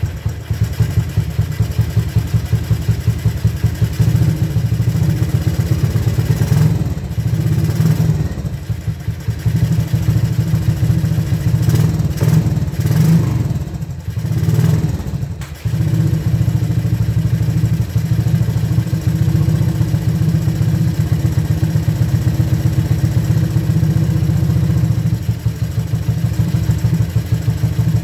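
Honda ATC200S's small single-cylinder four-stroke engine running on its first start after a new intake manifold and spark plug. The throttle is held slightly open because the idle is not yet set, and the revs waver a few times in the middle.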